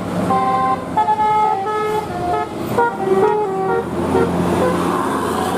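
Bus 'telolet' musical horn playing a quick tune of held notes stepping up and down, over a bus engine running. The tune stops about four seconds in and the engine carries on.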